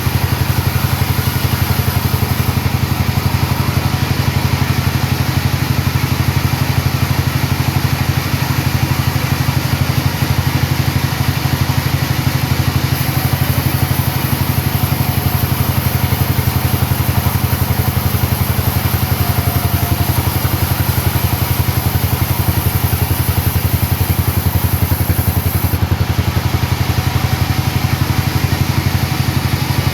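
A sawmill's engine running steadily at an even speed, with a fast regular firing rhythm.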